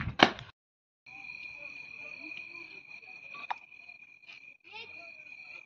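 A few sharp knocks, then after a brief gap crickets chirring in one steady, unbroken high trill.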